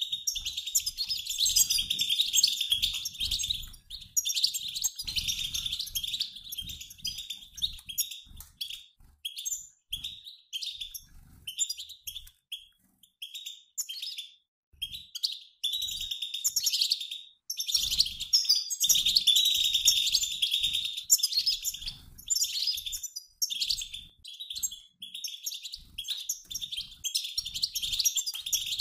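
A flock of European goldfinches, males and females together, twittering in rapid chattering calls, like a flock in flight. The chatter thins out for several seconds midway, then comes back dense.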